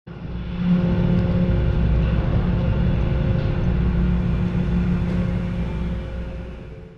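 A large diesel engine running steadily with a deep hum and a few steady tones above it, fading out near the end.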